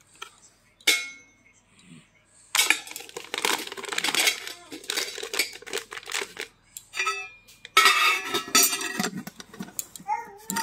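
A plastic scoop clinking and scraping inside a stainless steel tin, with the foil packet of powdered milk rustling. A single metallic clink rings briefly about a second in.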